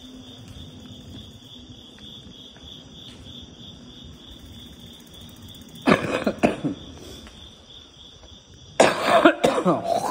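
A man coughing and hacking up phlegm in two rough bouts, about six seconds in and again near the end, the second longer. A steady high-pitched hum runs underneath.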